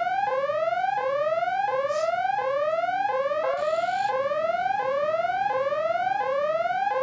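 Electronic alarm-like tone that sweeps upward in pitch and repeats about every 0.7 seconds, with two faint short swishes partway through.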